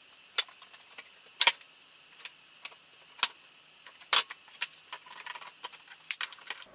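Sharp knocks and clicks of wooden boards being handled and set down in a gluing jig, with lighter rapid clicking near the end as a one-handed bar clamp is squeezed tight on the glued panel.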